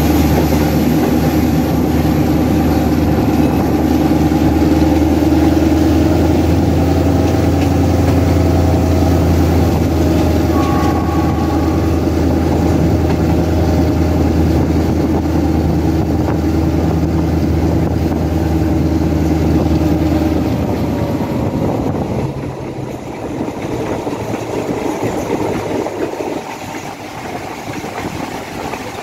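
Alsthom diesel-electric locomotive No. 4218 working hard under power, a steady deep engine drone heard from the cab window. About twenty seconds in the power comes off: the drone drops away and quietens, leaving the rumble of the train running along the track.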